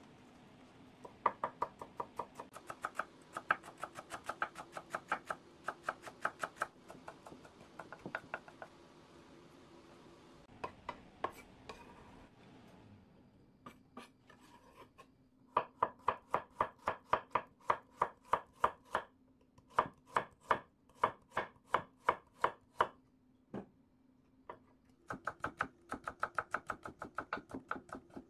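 Kitchen knife finely shredding radicchio, then a carrot, on a wooden cutting board: runs of quick, even chops at several a second, broken by short pauses.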